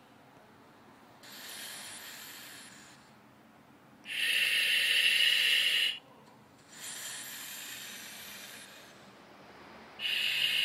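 A person breathing through a full-face gas mask: slow hissing breaths through the mask's filter and valves, louder and softer breaths taking turns about every three seconds.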